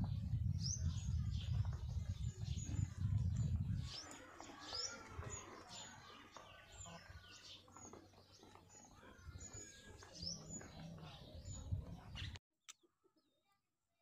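Small birds chirping over and over in short, high, falling notes, with a loud low rumble under them for the first four seconds. The sound drops out near the end.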